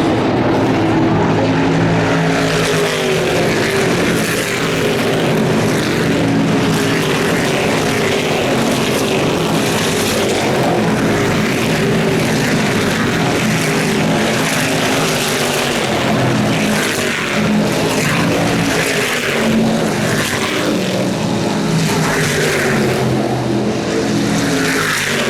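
Stock Car Brasil race cars' V8 engines running at full race speed, several at once, their pitch repeatedly rising and falling as they accelerate, shift and pass.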